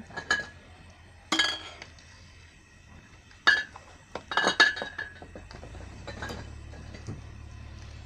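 Kitchen clinks and knocks as a strainer skimming foam off boiling plum juice is tapped against the rims of a metal pot and bowl: a handful of sharp strikes a second or two apart. A low steady hum comes in about halfway through.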